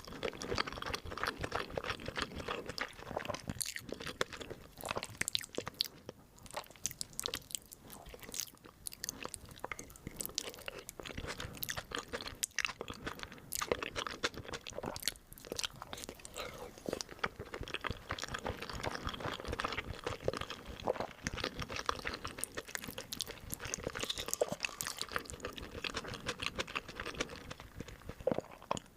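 Close-miked chewing and crunching of crisp food, with a rapid, irregular crackle of bites.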